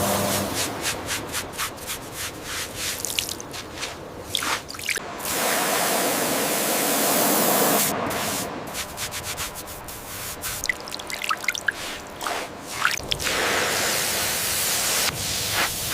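Wet cleaning of a corroded bronze artifact: water spraying and dripping, broken by many short, irregular scraping and scrubbing strokes.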